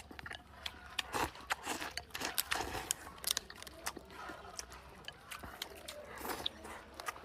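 A person eating chicken up close, chewing and biting with many irregular wet clicks and crunches.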